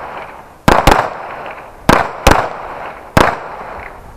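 Five pistol shots from two shooters firing side by side, unevenly spaced, with a quick pair about a second in. Each shot cracks sharply and trails off in a short echo.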